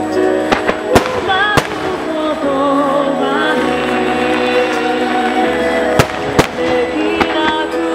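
Firework shells bursting with sharp bangs over loud music with singing, as in a music starmine synchronised to a song. There are three bangs in the first two seconds and two more a little past six seconds.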